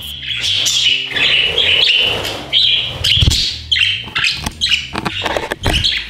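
Several budgerigars chattering and chirping together in a busy, continuous stream of high chirps, with a low thump about three seconds in and another near the end.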